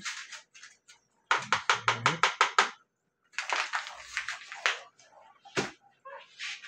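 A soup-mix packet is shaken in a quick run of rustling strokes as it is emptied into the pot, then crinkled in the hands. There is one sharp knock near the end.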